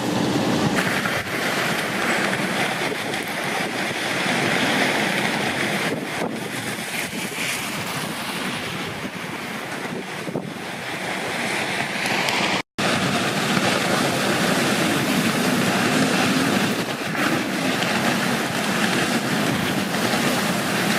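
Extreme storm wind gusting and buffeting the microphone, with heavy rain, swelling and easing in a steady roar. It breaks off for an instant about two-thirds of the way through.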